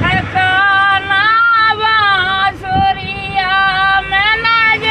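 A man singing a rasiya folk song in a very high, female-sounding voice, holding long notes with a wavering pitch and short breaks between phrases.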